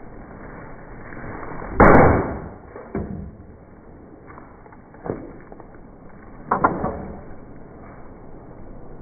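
Sledgehammer blows smashing objects: four heavy impacts at uneven intervals, the first the loudest.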